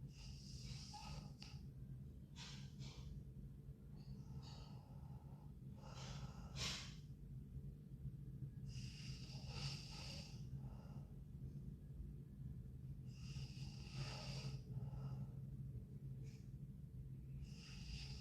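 A sleeping girl breathing noisily with light snoring, slow breaths every three to four seconds. A steady low hum runs underneath.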